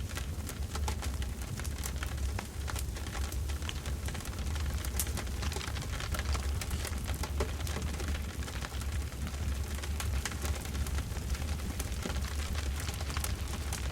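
Campfire burning, with a steady low rumble and many irregular crackles and pops.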